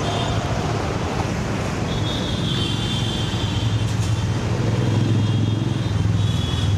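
Steady road traffic, cars and other motor vehicles passing close by, with a deep engine hum growing louder in the second half.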